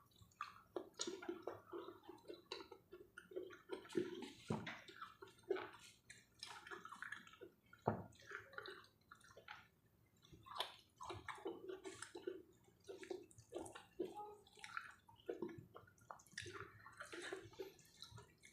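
Close-up sounds of someone chewing and eating rice and steamed vegetables: soft, irregular wet smacks and clicks, a few each second.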